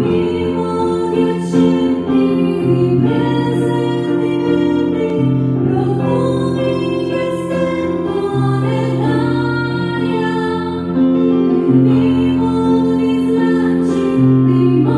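A woman singing into a microphone, accompanied by slow, held chords on an electronic keyboard, the low notes changing every couple of seconds.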